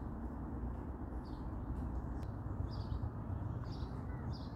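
A small songbird chirping: a few short, high chirps, coming closer together near the end, over a steady low outdoor rumble.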